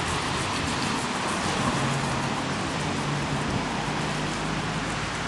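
Steady outdoor traffic noise with a faint low hum underneath.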